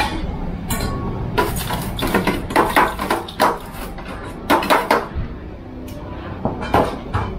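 A utensil clinking and scraping against a mixing basin in irregular clusters as fried garlic and ground chilli are added to pork crackling.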